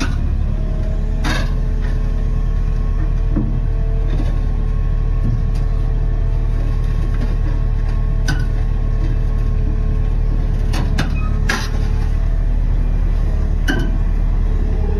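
Large XCMG hydraulic excavator's diesel engine running heavily under load, a steady deep rumble, with a few sharp metallic clanks as the machine shifts on the lowboy trailer.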